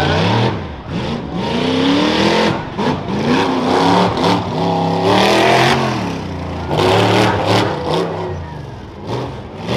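Rough-truck race truck's engine revving hard and dropping back again and again as it drives over the dirt mounds of an obstacle course.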